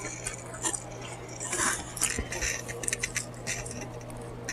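Eating sounds close to the microphone: irregular soft clicks and wet smacks of chewing, with a few light taps like a utensil against a plate or container, over a faint steady low hum.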